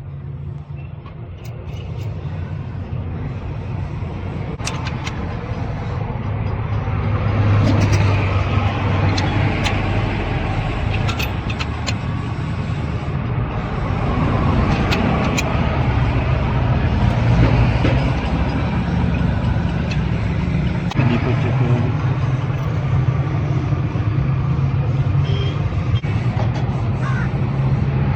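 Toyota Hilux diesel engine running steadily, growing louder over the first several seconds, with its pitch stepping up slightly about twenty seconds in.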